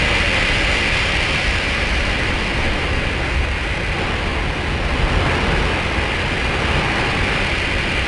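Heavy storm surf crashing against rocky sea cliffs: a loud, steady rush of breaking water and spray with no pauses.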